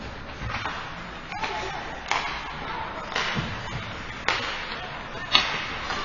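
Ice hockey play in a large rink: sharp clacks of sticks on the puck and ice, several a second or more apart, the loudest about four and five seconds in, over the scrape of skate blades and faint distant voices.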